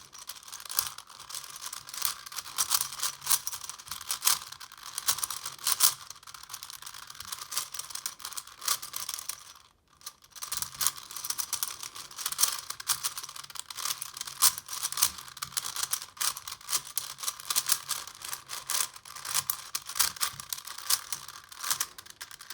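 Rubik's-brand 5x5 cube being turned fast, its plastic layers clicking and clacking in a steady stream of turns, with a brief pause about ten seconds in.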